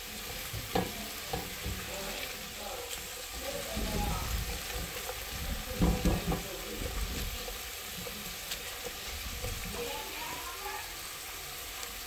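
Diced onions sizzling in a hot metal pot while a silicone spatula stirs and scrapes them, lifting the browned chicken drippings off the bottom. A few scrapes and knocks of the spatula stand out, loudest about six seconds in.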